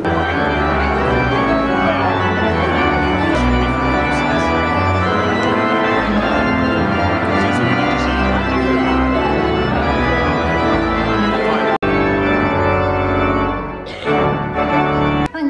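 Pipe organ playing sustained chords over a deep bass line, with a brief break about twelve seconds in.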